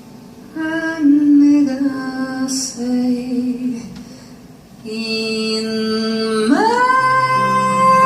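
Woman singing an Italian ballad live: sustained phrases, then about two-thirds of the way in her voice slides up about an octave into a long held high note. Low plucked guitar notes come in under the held note.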